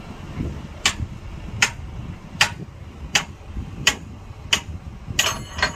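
Sharp clicks repeating evenly, about one every three quarters of a second, over a low engine rumble, ending in a quick cluster of clicks with a brief ringing.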